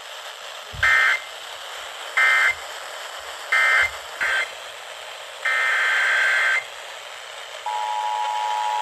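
Emergency Alert System SAME digital data bursts over radio: three short bursts about a second apart, the end-of-message code closing the warning, then a brief burst and a longer one of about a second. Near the end the steady two-tone EAS attention signal begins.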